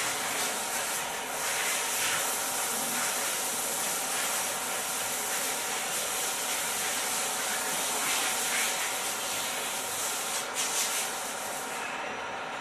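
Steady hissing machine-shop noise with a faint machine hum under it, and a few light metallic clatters near the end.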